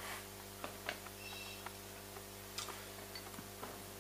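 Small metal pen parts handled on a cloth-covered table: a scattering of light clicks and taps, with a brief faint high ring about a second and a half in, over a steady low hum.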